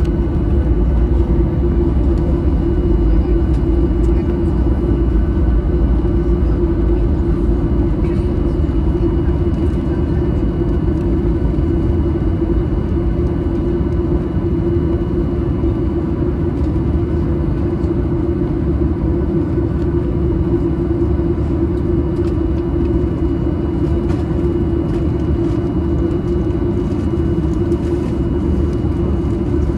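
Boeing 737-800 cabin noise: the CFM56 engines give a loud, steady low rumble with several steady whining tones above it.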